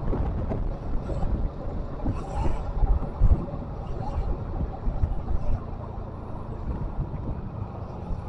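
Steady low rumble with wind noise on the microphone.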